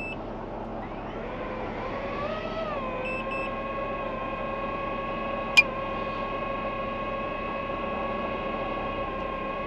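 FPV drone's motors and propellers spinning up for take-off and then holding a steady high whine. The pitch rises and wavers as the throttle changes before settling. A single sharp click sounds about five and a half seconds in.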